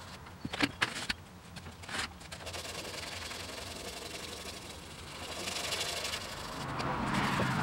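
Fine-grit sandpaper (1000 grit) rubbed by hand over a coat of polyester primer on a 1953 Ford F100's steel cab, a steady scratchy rubbing, for a final smoothing of the primer. A few sharp taps come in the first couple of seconds before the rubbing settles in.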